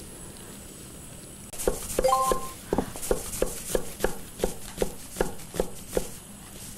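Knife chopping onion on a wooden cutting board: an even run of sharp knocks, about two and a half a second, stopping near the end. Just before the chopping starts there is a short ringing clink of glass or metal.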